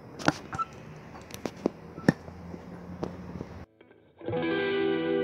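Scattered light clicks and knocks over a faint background for about three and a half seconds, then a brief dropout and background music with guitar starting about four seconds in.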